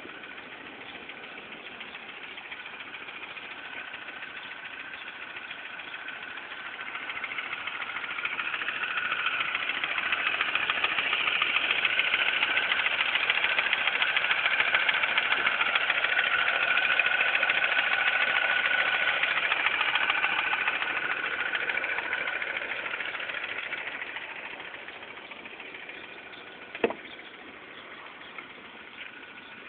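Mini Cooper S four-cylinder engine idling with a ticking noise, louder through the middle stretch before falling back. A single sharp click comes near the end.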